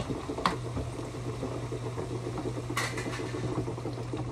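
Cheesy pasta sauce simmering and bubbling in a pan on the stove, with two light clinks of a utensil against the pan, about half a second in and near three seconds, over a steady low hum.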